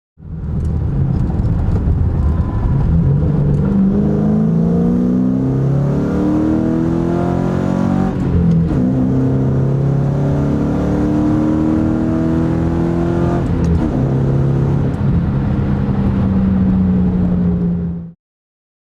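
2005 Ford Mustang GT's 4.6-litre V8 through a Borla Stinger axle-back exhaust and Pypes off-road X-pipe, accelerating under load. The pitch climbs for several seconds, drops at a gear shift about eight seconds in, climbs again, then holds steady near the end.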